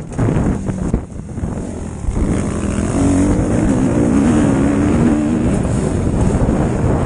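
Motocross bike engine heard from the rider's own onboard camera, with wind buffeting the microphone. The throttle comes off and on unevenly in the first two seconds, then the engine pulls hard and steady, its pitch wavering up and down.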